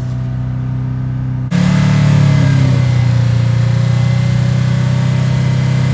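Subaru WRX's turbocharged flat-four engine held at a steady 4,000 rpm in neutral-clutch, revs not rising or falling. About a second and a half in, the sound cuts from inside the cabin to outside the car, where it is louder with added hiss.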